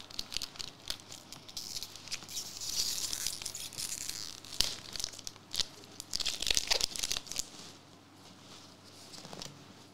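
A One Piece Card Game booster pack being torn open and its wrapper crinkled by hand, in two spells of crackling with a few sharp clicks, quieter after about three-quarters of the way in.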